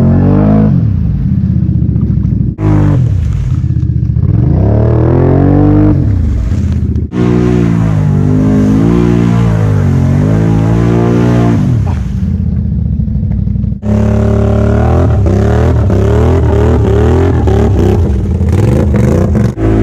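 Can-Am Outlander XMR 570 ATV's V-twin engine revving hard as the quads churn through deep mud, its pitch climbing and falling over and over. The sound breaks off and picks up again abruptly three times.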